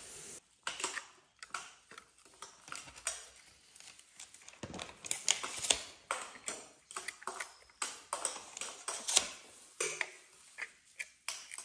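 Irregular light clicks and taps as filled glass jars and their round white covers are handled and set down on a table.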